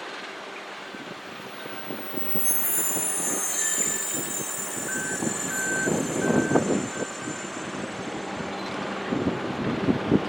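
A train moving through the station, its wheels giving a high-pitched squeal about two seconds in, followed by a run of short electronic beeps, roughly two a second.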